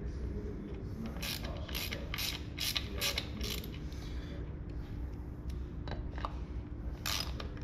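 Hand ratchet clicking as it runs in the screws of a Harley-Davidson Dyna's derby cover, in short strokes about two a second. There is a pause of a few seconds in the middle, then a few more strokes near the end.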